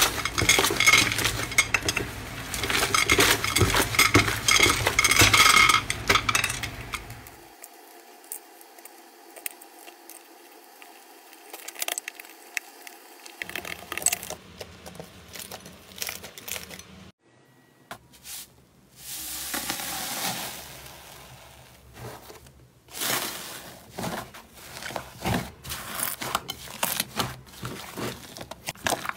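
Hands squeezing and kneading slime, making wet crackling, popping and squishing: dense and loud for the first several seconds, then quieter scattered clicks, with the sound changing abruptly a few times.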